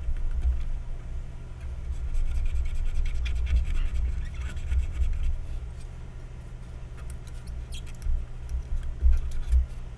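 Light scratching and rubbing of cleanup work on a circuit board after soldering, with faint clicks. Under it are irregular dull low bumps and a steady low hum.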